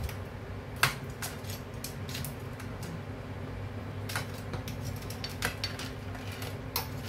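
Metal kitchen tongs clinking and tapping against a ceramic plate and crab shells as steamed crabs are shifted about: a few sharp clinks, the loudest about a second in, over a steady low hum.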